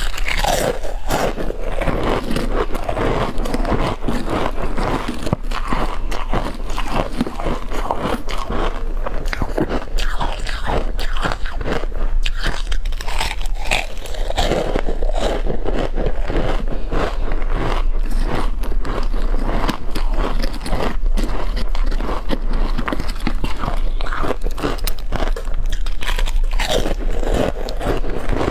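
Frozen ice chunks coated in powdered milk being bitten and chewed close to the microphone: continuous, irregular crisp crunching and cracking as the ice breaks between the teeth.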